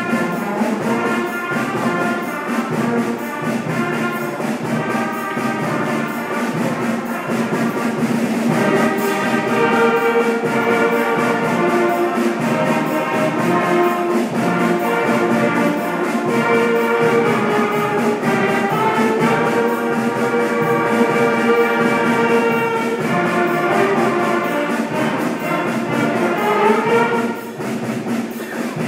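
Middle-school concert band playing, with wind instruments holding notes that change from phrase to phrase. The music dips briefly about a second before the end, then carries on.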